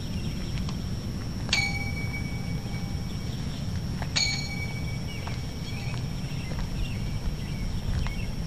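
Two metallic dings about two and a half seconds apart, each ringing for a second or so before fading, over a faint steady high tone.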